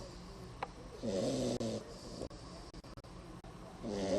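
Beagle puppy snoring: one pitched snore about a second in, lasting under a second, and the next starting near the end.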